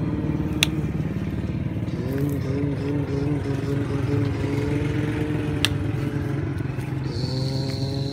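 An engine running steadily, motorcycle-like. Its pitch wavers about two seconds in and dips and picks up again near the end. Two sharp clicks sound over it.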